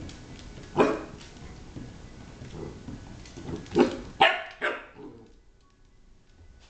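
A beagle puppy barking: one sharp bark about a second in, then three quick barks close together around four seconds in.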